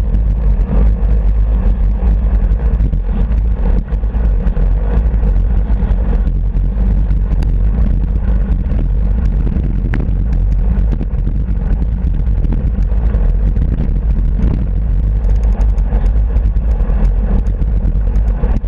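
Wind buffeting the microphone of a handlebar-mounted camera on a moving bike: a loud, steady low rumble with road and tyre noise mixed in.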